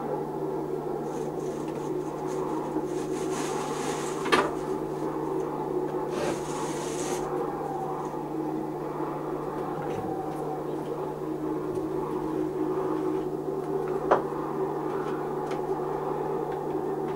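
A steady low drone holds throughout while the puppet theatre's scenery is changed. Over it come two short spells of rubbing and scraping, and two sharp knocks, one about four seconds in and one about fourteen seconds in.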